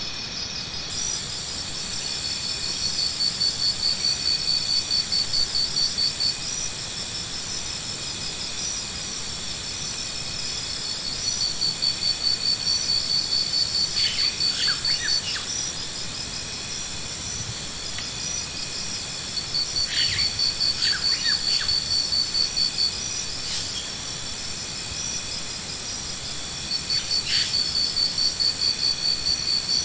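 Steady high-pitched insect chorus, with a rapidly pulsing call that swells for three or four seconds about every eight seconds. A few short bird chirps come in between.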